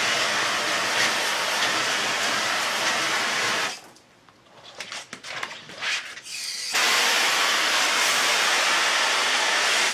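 Steady spray hissing in two long runs, the first of nearly four seconds and the second of about three, each starting and stopping abruptly, with a few scattered clicks and knocks in between.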